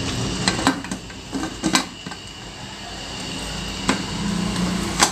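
Metal pressure cooker lid being fitted and locked shut: several sharp clicks and knocks of the lid against the rim and the handles meeting.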